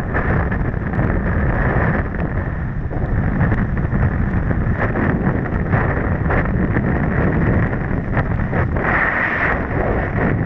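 Steady wind buffeting on the microphone of a camera riding a towed tube at speed, mixed with the rushing hiss and splash of water and spray beneath it.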